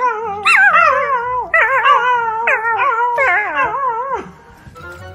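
A puppy howling in a run of about four or five wavering, up-and-down calls, breaking off about four seconds in.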